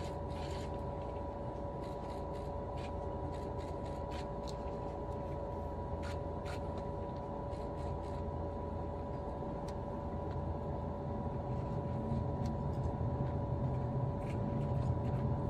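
Cabin noise of a superconducting maglev (SCMaglev) train pulling away from standstill and slowly gathering speed, still rolling on its rubber support wheels. A steady low rumble runs under a constant two-note hum, growing slightly louder toward the end, with a few faint clicks.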